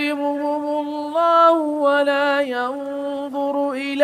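A male reciter chanting the Quran in melodic tajweed style, holding one long drawn-out vowel with small steps up and down in pitch.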